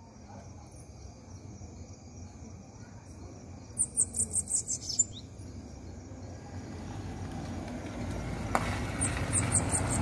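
Caged bananaquit (sibite) singing: a quick run of high, thin notes, about six a second, some four seconds in, and a shorter run near the end, over a low background rumble that grows louder.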